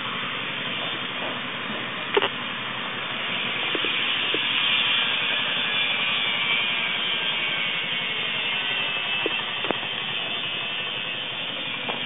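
Steady rushing noise, like wind or machinery, with a few sharp clicks, the loudest about two seconds in and another near ten seconds.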